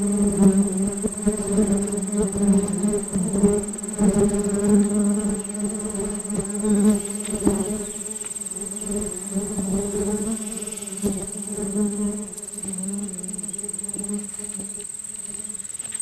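Bees buzzing inside a pumpkin flower: a steady low hum that swells and dips as they move around the stamen, thinning out near the end. A constant high-pitched insect tone runs underneath.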